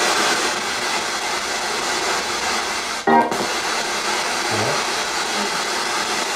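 Spirit box sweeping through radio stations: steady static hiss, broken about three seconds in by a short, loud pitched snippet of broadcast sound.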